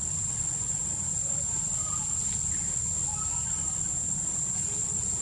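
Steady high-pitched drone of insects such as cicadas or crickets over a low rumble, with a few faint short chirps.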